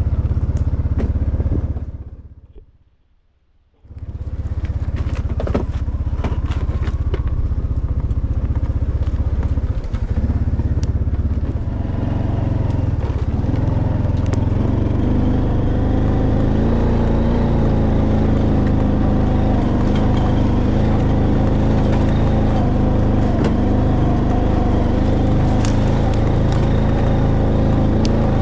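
A vehicle engine running steadily with a low rumble, cutting out briefly to near silence about three seconds in.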